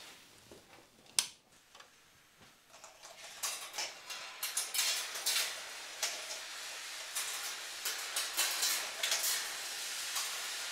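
Balls rolling and clattering along the welded metal wire tracks of a large kinetic ball-run sculpture. The sound builds over a few seconds into a continuous metallic rattle full of clinks. A single sharp click about a second in marks the machine being switched on.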